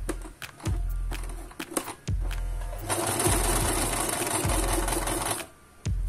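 Singer 3223 domestic sewing machine stitching through thick nylon seat-belt webbing: a few short bursts of stitching, then a longer continuous run from about three seconds in that stops shortly before the end.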